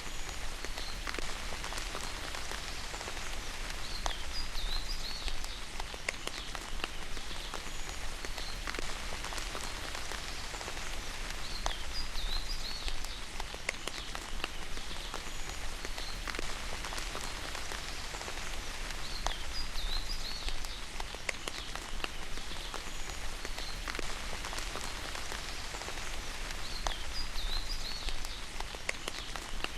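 Steady rain with many individual drops pattering, and a short high bird chirp recurring about every seven to eight seconds.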